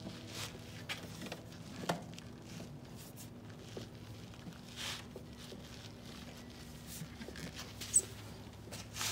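Light clicks, knocks and rustles of a Mercury 250 Pro XS outboard's lower cowling panel being pressed and worked into place by hand, with one sharp snap about eight seconds in, over a faint steady hum.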